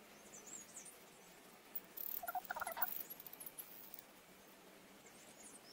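Faint bird calls: thin high chirps near the start and again near the end, and about two seconds in a short run of lower, rapidly repeated calls.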